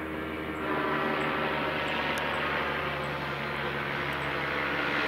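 Paramotor engine and propeller droning steadily, getting louder about a second in.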